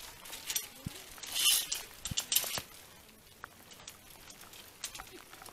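Metal clicks and clinks of a zipline trolley and carabiners being clipped onto the cable, with brief rustling of a plastic rain poncho. The clicks come mostly in the first two seconds or so and thin out after about three seconds.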